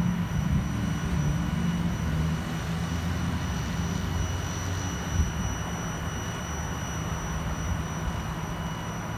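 Airbus A320's CFM56 turbofan engines rumbling as the airliner flies over, easing slightly toward the end, with a faint rise of hiss about four to five seconds in.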